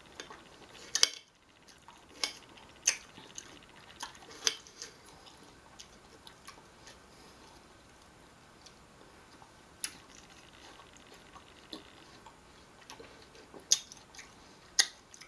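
Irregular light clicks and taps of a small fork or knife against a glass dish of watermelon chunks, about a dozen spread unevenly, the sharpest about a second in and near the end.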